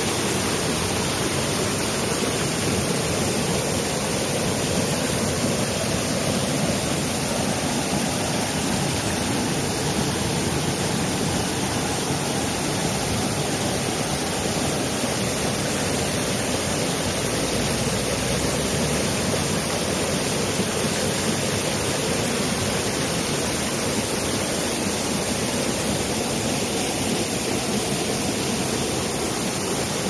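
Mountain stream rushing over rocks and pouring through small cascades between boulders: a steady, even rush of water.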